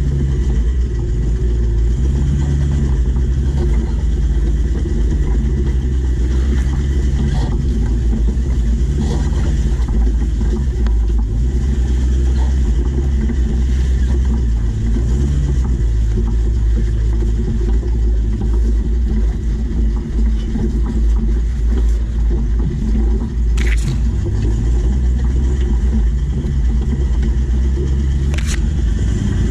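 Four-wheel drive's engine working at low speed on a rough off-road track, its pitch rising and falling as it revs up and eases off over and over. Two sharp knocks near the end.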